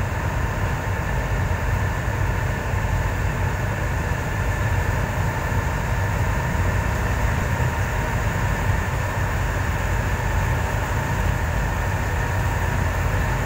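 Boat engine running steadily under way: a constant low drone with a faint steady whine above it, mixed with water washing along the hull.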